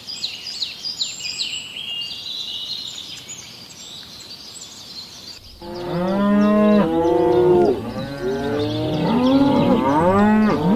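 Small birds chirping for about five seconds, then several cattle mooing, their calls overlapping one another.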